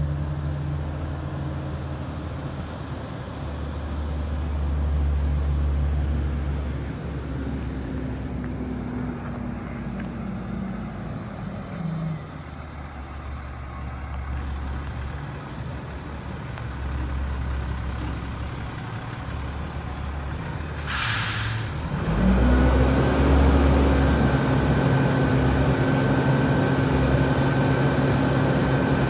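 Diesel garbage truck working along the street: its engine runs and revs, the pitch sinking away about twelve seconds in. About two-thirds of the way in, a short hiss of its air brakes. The engine then runs up and holds a higher steady speed with a whine.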